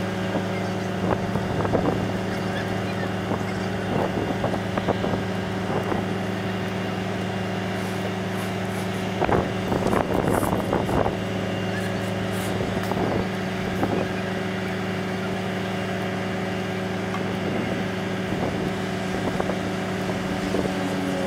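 Heavy vehicle engine running at a steady idle, a low even hum, with a few faint knocks and brief voices about midway.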